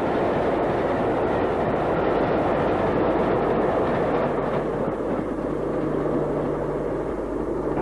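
Diesel train running, a steady rumble, with a steady low hum joining about halfway through.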